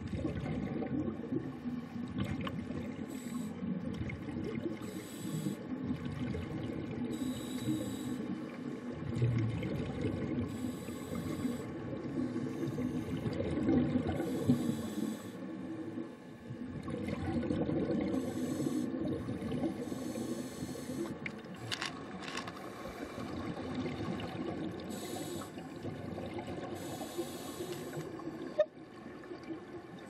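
Scuba divers breathing through their regulators underwater: a hiss every two to three seconds and bursts of exhaled bubbles over a steady low bubbling rumble. A single sharp knock near the end.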